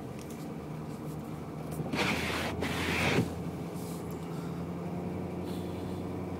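A car's steady low engine and road hum heard from inside the cabin while driving slowly on snow, with two short rushing noises back to back about two seconds in.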